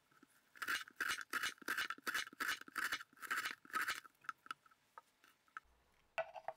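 Kitchen knife slicing half an onion into thin strips on a wooden cutting board: about ten crisp crunching strokes, roughly three a second. A few faint ticks follow, then a short knock near the end.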